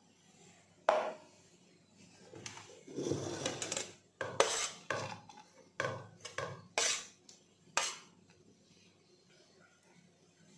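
A metal spoon scraping and knocking against a steel plate and bowls as grated guava is moved between them. There is a sharp knock about a second in, a few seconds of scraping, then a run of sharp taps and clinks as the spoon knocks the shreds off.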